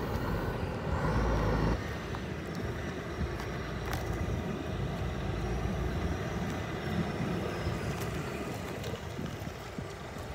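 Scania 124G truck's diesel engine running at low speed as the truck pulls slowly up and stops, with a louder rush lasting under a second about a second in that cuts off suddenly.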